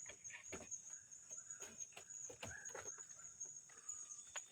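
Insects in the forest keep up a steady, high, thin drone. Scattered short clicks and knocks and a few brief sliding calls sound over it.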